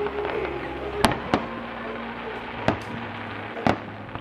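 Fireworks bursting overhead: a handful of sharp, separate bangs over a steady background hum, the loudest about a second in and near the end.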